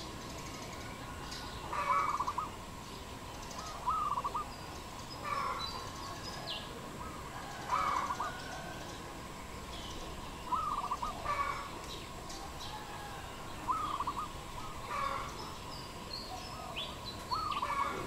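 Dove cooing: a short rippling call repeated about every two seconds, with fainter higher chirps from other birds between the calls.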